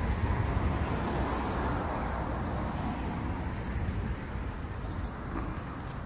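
Street traffic noise, swelling as a vehicle passes in the first two seconds, with a couple of faint clicks near the end.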